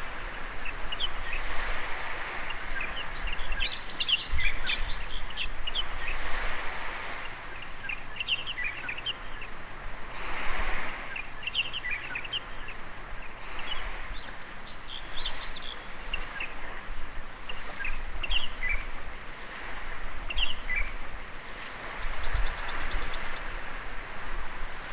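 Small waves washing onto a beach in swells every few seconds, with songbirds chirping throughout and a quick run of high chirps near the end.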